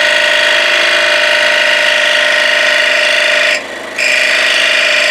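Scroll saw with a number 9 Pegas modified-geometry blade running steadily, cutting 3/4-inch red oak. The sound drops out briefly about three and a half seconds in, then comes back.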